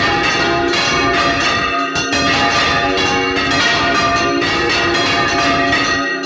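Five church bells swung full circle together in the Valencian style, ringing loudly and without a break, their strikes overlapping in a dense, continuous peal. Heard close up from inside the belfry, beside the swinging bells.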